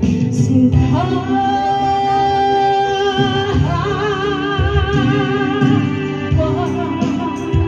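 A woman singing into a handheld microphone over instrumental accompaniment, holding long notes, with a wavering vibrato on the notes in the middle.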